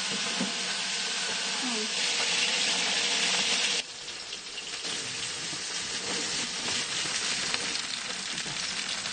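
Hot oil sizzling steadily in a large aluminium cooking pot as flatbread is laid in the bottom for the crust. Nearly four seconds in, the sizzle drops suddenly to a lower, still steady level.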